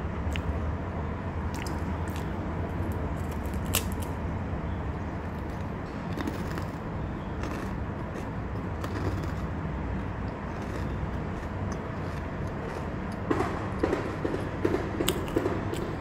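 Sesame-and-cashew puffed rice crisp being bitten and chewed: a few sharp single crunches, then a run of crisp crunching chews near the end. A steady low rumble runs underneath.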